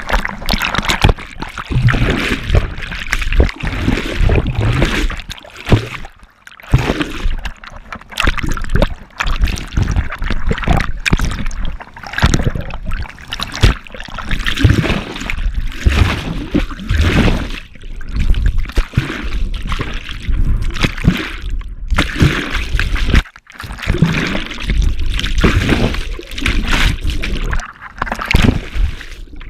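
Fast river white water splashing and gurgling around a GoPro held at the surface, as a swimmer is swept through the current. Loud and uneven, with brief drop-outs about six seconds in and again about twenty-three seconds in.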